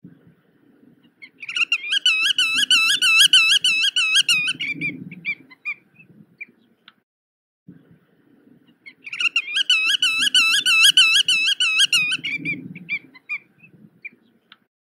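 Black-tailed godwit calling: two bouts of fast repeated notes, about four a second, each note dipping and rising in pitch. Each bout lasts about three seconds, and the second starts about eight seconds after the first.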